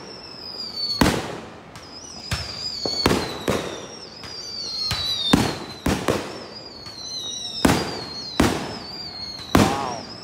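Aerial fireworks shells bursting in a rapid, uneven series of sharp bangs, about a dozen in ten seconds, each with a short echo. A thin, high, wavering tone runs beneath the bangs.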